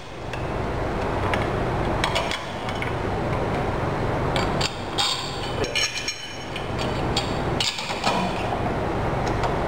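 Scattered light metallic clicks and clinks, about eight in all, as parts are fitted by hand onto a truck clutch booster's air supply end, over a steady background hum.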